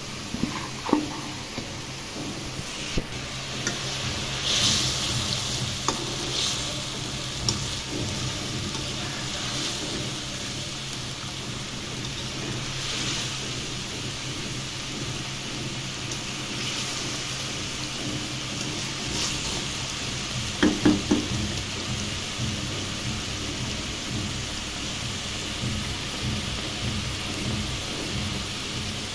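A thin fish curry of hilsa, new potatoes and tomatoes simmering and sizzling steadily in a karahi in its last minutes of cooking, with coriander just stirred in. A few sharp knocks of a utensil against the pan, with a short cluster of them about 21 seconds in.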